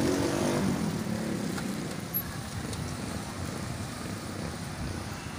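A motorcycle engine passing close by in the first second, fading into a steady noise of rain and traffic on a wet road.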